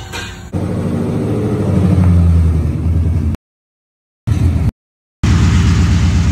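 A 2018 Ford Mustang GT's 5.0-litre V8 running loud as the car is driven slowly in, its pitch rising over the first couple of seconds as it is given a little throttle. The sound cuts out to silence twice, briefly, around the middle.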